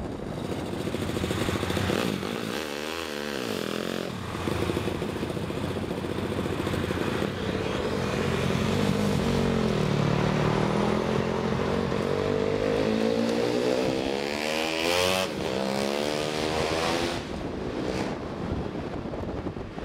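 Honda Monkey Z50 mini bike with a 178cc Takegawa four-valve single-cylinder engine, heard from a following car: the engine's pitch dips and climbs as the bike slows and accelerates, with one long rising rev in the second half, over road and wind noise.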